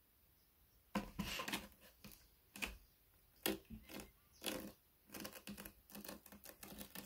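A kitten's claws scratching and catching on a sisal-rope scratching post, a run of quick irregular rasping scrapes and clicks that starts about a second in.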